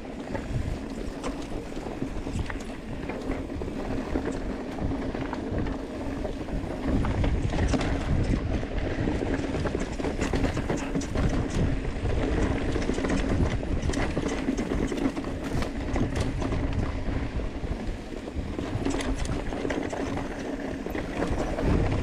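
Mountain bike riding fast down a dry dirt trail: tyres running over loose dirt and rocks and the bike rattling and clicking over bumps, with wind rumbling on the action camera's microphone, heavier from about seven seconds in.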